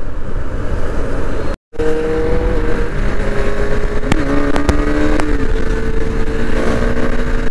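Motorcycle on the move in road traffic: a steady engine tone that steps in pitch a few times, over wind and road rumble. The sound cuts out briefly about one and a half seconds in.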